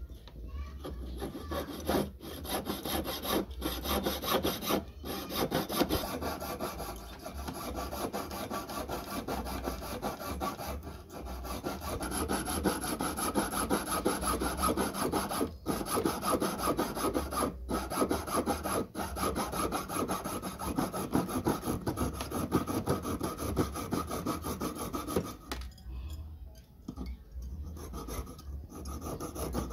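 Jeweller's piercing saw cutting through a metal ring held on a wooden bench pin, a fast run of fine rasping saw strokes with a few brief pauses, quieter near the end.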